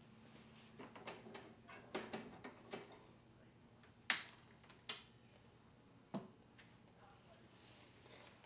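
Faint scattered clicks and knocks from flipping the plastic song pages of a diner booth jukebox selector and handling laminated menus on the table. The loudest is a single sharp click about four seconds in.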